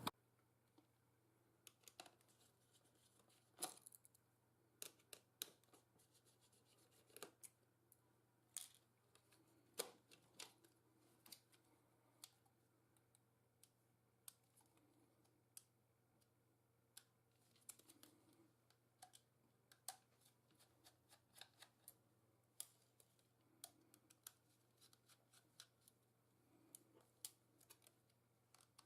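Faint, irregular clicks and light taps of small parts and a tool being handled while a laptop is taken apart by hand, over a low steady hum.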